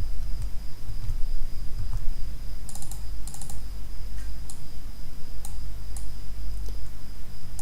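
Scattered clicks of a computer mouse and keyboard, a few in quick pairs about three seconds in, over a steady low electrical hum and a faint high whine.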